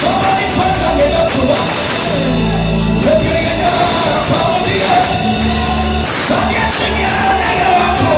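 Live gospel music: a man sings lead into a microphone over long held bass notes that change every second or two, with backing singers.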